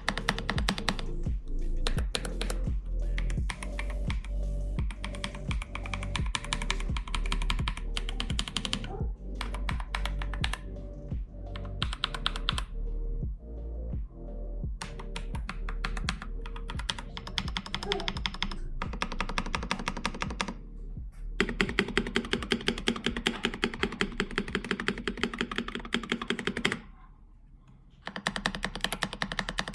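Typing on a factory-lubed Akko PC75B Plus Year of the Tiger mechanical keyboard: a continuous patter of key clicks, turning into a fast, even run of louder keystrokes in the second half, with a short pause near the end. Background music plays underneath.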